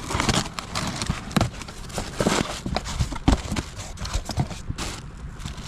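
Packaging of a new starter motor being worked open one-handed with a tool: irregular knocks and clicks with scraping and rustling.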